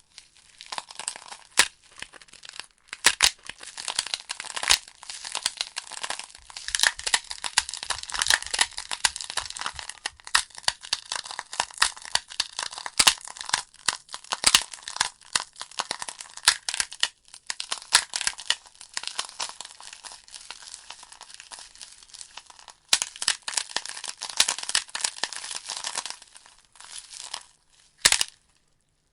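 Logs burning in a fireplace, crackling and popping: a dense run of sharp crackles over a soft hiss, thinning out near the end.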